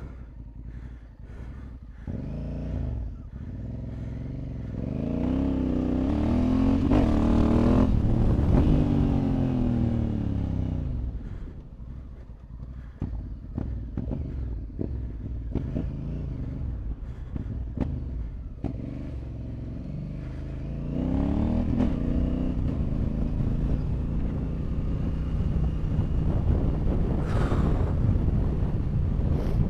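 Honda Africa Twin 1100's parallel-twin engine under way off road. It climbs in revs for several seconds, drops back near the middle, then picks up again about two-thirds through and holds, with wind noise and scattered sharp ticks over it.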